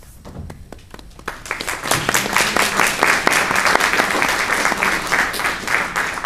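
Audience applauding. It starts with a few scattered claps and swells to full applause about two seconds in.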